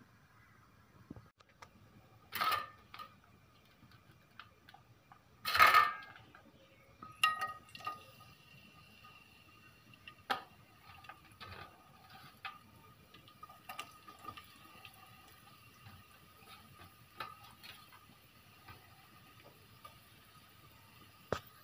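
Metal kitchenware clanking: two sharp clanks about three seconds apart, the second the loudest. Scattered lighter clicks and taps follow.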